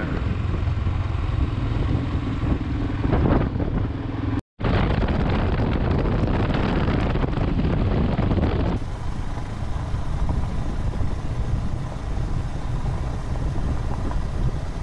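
Royal Enfield Himalayan's single-cylinder engine running at road speed, with road and wind noise, heard from on the bike. The sound cuts out for a moment about four and a half seconds in and turns duller near nine seconds in.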